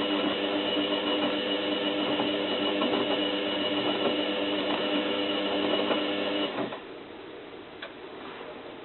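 Zanussi FLA1002W washing machine's motor turning the drum with a steady whine during the heated wash cycle, cutting out abruptly about two-thirds of the way through and leaving a quiet hum with a single light click.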